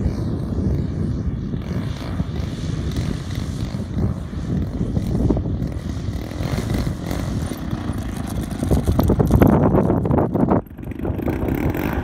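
The single-cylinder two-stroke DA 60 gas engine of a large RC aerobatic plane running at low throttle as the plane lands and rolls along the ground, mixed with heavy wind buffeting on the microphone. The sound grows louder about nine seconds in as the plane rolls close, dips briefly, then picks up again near the end.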